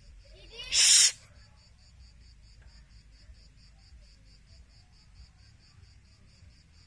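A dog's single short, loud yelp about a second in, over faint, high, steady cricket chirping at about five pulses a second.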